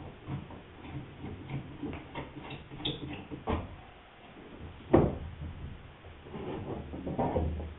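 Handling noises at a wooden boat rail being fitted and clamped: scattered light clicks and knocks of wood and clamps, with one sharp knock about five seconds in.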